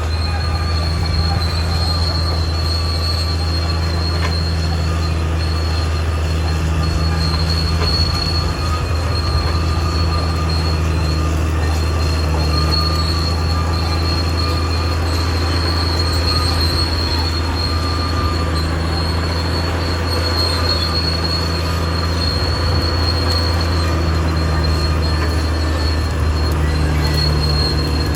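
Caterpillar D6R XL crawler bulldozer working, its diesel engine running steadily under a continuous high-pitched metallic squeal from the steel tracks.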